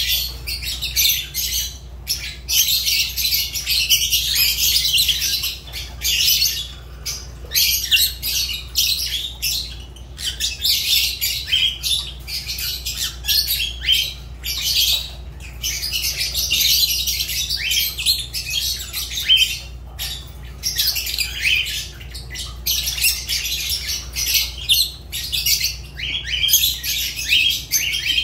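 Fischer's lovebirds chattering: dense, shrill chirps and squawks in bursts separated by brief pauses.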